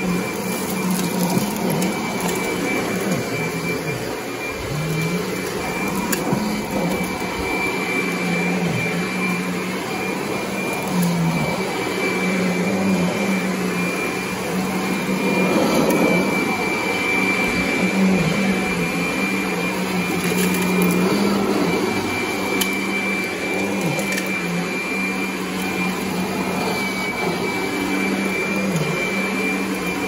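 Kirby Sentria upright vacuum running on carpet: a steady motor hum with a high whine, the hum dipping briefly in pitch now and then.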